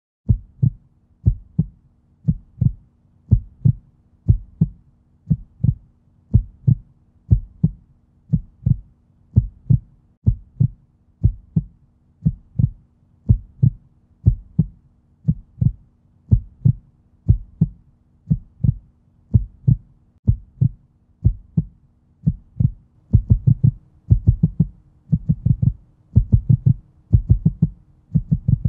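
Heartbeat sound effect: deep double thumps about once a second over a faint steady low hum, coming quicker and louder about three quarters of the way through.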